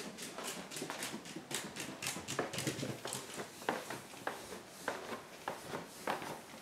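Footsteps on a hardwood floor and stairs: quick, sharp clicks from a dog's claws on the wood. From about two and a half seconds in, these give way to slower, heavier treads about every half second.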